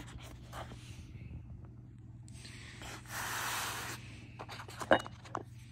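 Small clicks and taps of chrome sockets being handled and set back into a foam tool tray, with a sharp click a little before the end. A rush of noise lasts about a second around the middle, and a low steady hum runs underneath.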